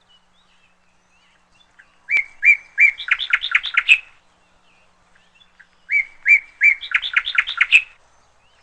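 A small bird singing the same short song phrase twice. Each phrase is about two seconds long: three clear notes followed by a fast, higher run of notes.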